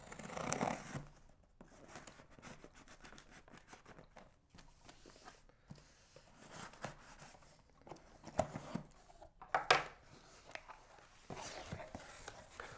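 Folding knife slitting packing tape on a cardboard box: a faint, uneven scraping and ripping of tape and card, with a few sharper strokes in the second half. Cardboard rustles near the end as the box flaps are pulled open.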